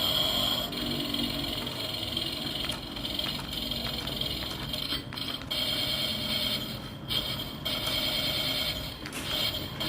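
Radio-controlled model tank running, its sound unit playing a buzzy, rattling engine noise through a small speaker, with brief dips a few times.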